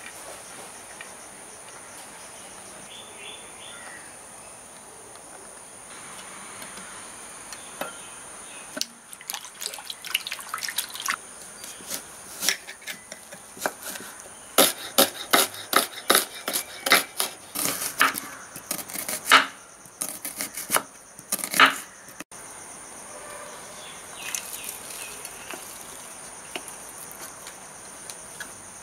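Kitchen knife slicing a red onion on a wooden cutting board: a run of quick, sharp cuts from about nine seconds in until about twenty-two seconds, loudest in the latter half. Crickets chirp steadily in the background.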